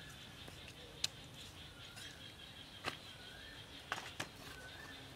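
A kitchen knife knocks sharply on a wooden cutting board four times while cutting raw chicken legs. A steady high drone runs underneath, and a bird calls with short wavering whistles.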